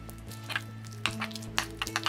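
Metal spoon clicking and scraping against a porcelain bowl while stirring a thick miso sauce, in a handful of sharp strokes from about half a second in and more toward the end, over soft background music.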